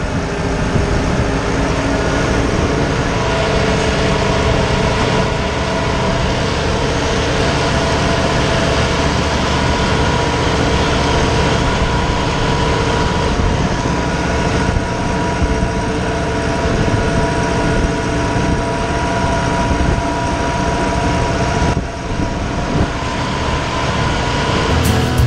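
John Deere tractor's diesel engine running steadily under load, pulling a disc mower through standing grass, heard from the operator's seat, with a brief dip about twenty-two seconds in.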